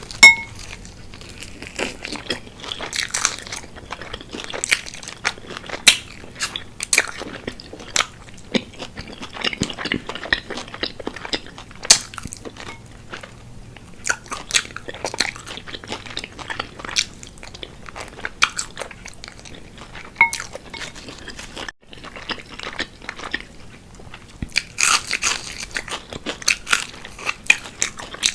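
Close-miked eating of crispy fried chicken wings: repeated sharp crunches from biting into the crisp breading, mixed with chewing.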